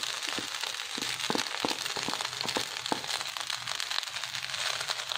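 Fried rice and diced vegetables sizzling in a hot pan over high heat, with a steady hiss and scattered sharp clicks and taps as the vegetables are tipped in from a plate and stirred with a wooden spatula.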